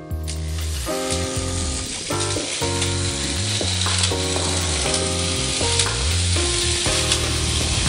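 Several battery-powered Plarail toy trains running together on plastic track: an even, rattling whir of motors and wheels that starts just after the opening. Background music with a melody and bass plays over it.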